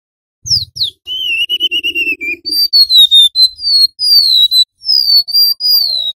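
Golden-bellied gerygone (remetuk laut) singing a long whistled song. It opens with two quick downward-sliding whistles, then a wavering, trilled note, then a string of high, clear whistles that each glide down in pitch.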